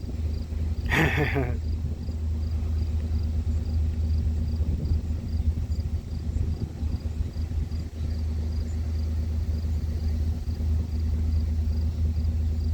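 Steady low rumble with a short, wavering bleat about a second in, and a faint high chirp repeating about twice a second.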